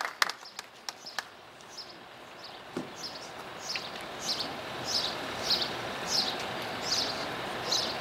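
The last few claps of applause die away. Then a bird repeats a short, high chirp that falls in pitch, about every two-thirds of a second, over steady outdoor background noise.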